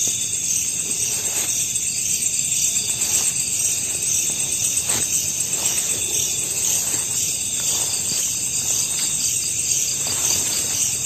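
Night insects such as crickets chirring steadily in a high, finely pulsing trill, with a few faint soft knocks or rustles scattered through.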